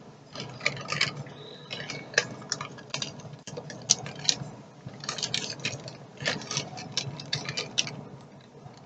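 Gift wrapping paper and packaging being handled and opened by hand: irregular light crinkles, rustles and clicks.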